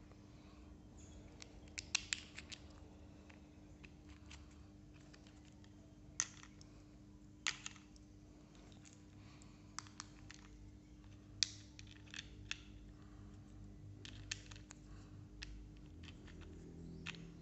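Hard plastic parts of a take-apart toy construction-vehicle kit clicking and clacking as they are picked up and fitted together: scattered sharp clicks, a few at a time, over a faint steady low hum.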